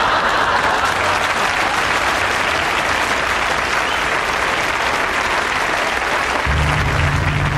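Live studio audience laughing and clapping: a loud burst that swells up and slowly dies away. Near the end a low steady hum comes in underneath.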